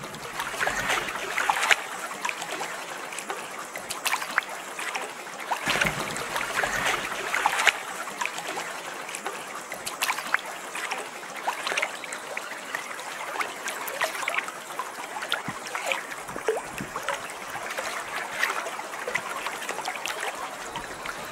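Water lapping and trickling: a steady wash with many small, irregular splashes, as of small waves at a lake's edge.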